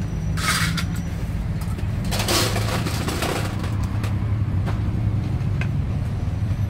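Street traffic: a vehicle engine running with a steady low hum, with two short bursts of hiss, one about half a second in and a longer one around two to three seconds in.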